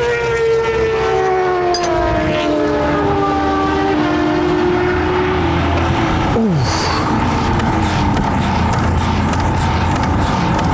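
Engines of vehicles running on the race track, their pitch falling slowly as one passes by, with a second, quicker falling pass about six and a half seconds in.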